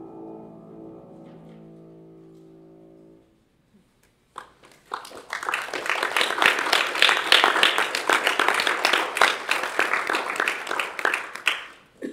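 A grand piano's final chord rings and dies away over about three seconds. After a short pause an audience applauds for about seven seconds.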